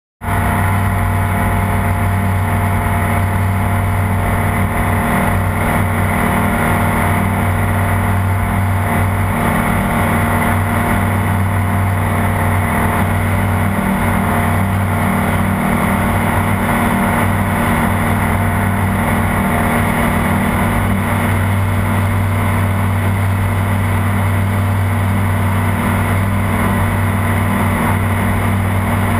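Light aircraft's piston engine and propeller running at climb power, heard from inside the cockpit as a loud, even drone with a strong low hum. The drone cuts in suddenly right at the start.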